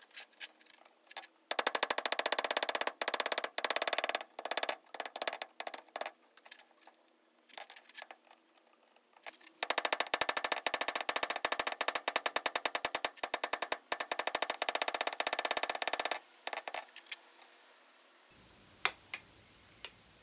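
Hand hammer striking a hot square steel bar on an anvil, drawing it out to a taper. The blows come in two long runs of rapid strikes, with scattered single blows between them.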